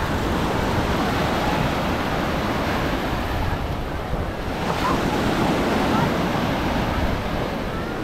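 Sea surf breaking and washing up the beach in a steady rush, with wind buffeting the microphone; the surf swells a little about halfway through.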